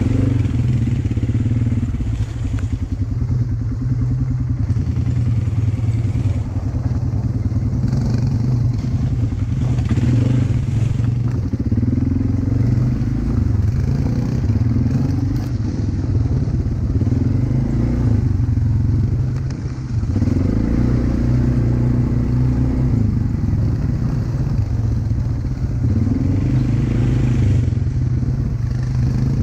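A vehicle's engine running on the move, its pitch rising and falling again and again with the revs, over a steady low rumble.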